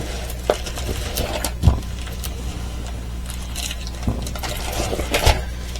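Scattered rustles and light taps from handling a diamond painting kit's canvas and bags of diamonds, over a steady low hum.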